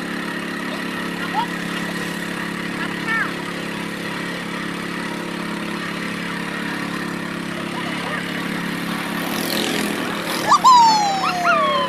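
Small boat engine running steadily with an even hum. Near the end, water splashes up at the bow, followed by several loud, high calls that each fall in pitch.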